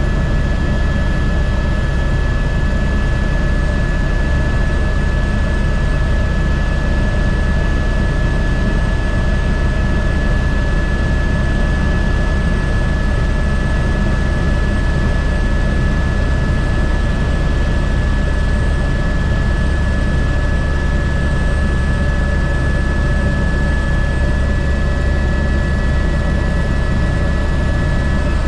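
Airbus H125 helicopter running steadily: the deep churn of the rotor with a constant high-pitched whine from its single turboshaft engine.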